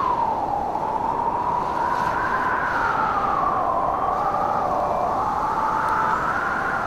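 Strong gusty blizzard wind howling, a whistling tone that slowly rises and falls in pitch over a steady rush of wind noise.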